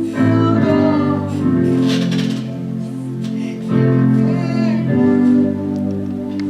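Gospel music: sustained chords that change every second or so.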